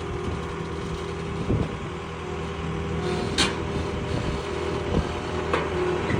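Tow vehicle's engine running steadily with road noise while pulling a loaded trailer, with a few short knocks or clatters, the sharpest about halfway through.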